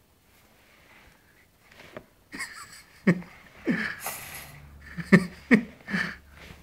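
A dog blowing air through its loose jowls, making them flap: a quick series of about six short, loud puffs, each dropping in pitch, starting about two seconds in.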